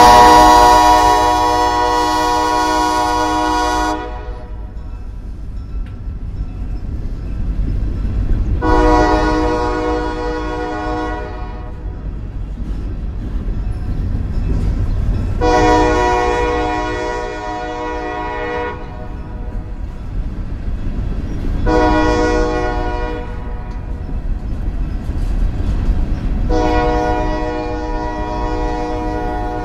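Freight cars rolling past with a steady low rumble, while the locomotive's multi-note air horn sounds up ahead. First comes a loud long blast, then the grade-crossing signal: long, long, short, long, the last blast still sounding at the end.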